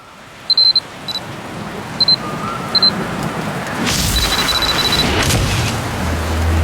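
Digital camera autofocus-confirmation beeps used as sound effects on fast cuts: short high beeps, some doubled, about a second apart, then a quick run of them near the middle. They sit over a rising, noisy swell of effects with a burst about four seconds in. Low music comes in near the end.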